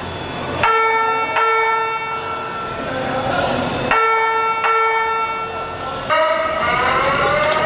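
Building fire alarm evacuation signal. Two-note chime tones sound twice, each held for about three seconds, then the rising whoop tones start again about six seconds in.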